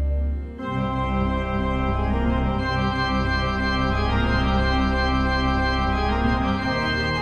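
Background music of slow, sustained chords, the harmony changing about half a second in and again near the end.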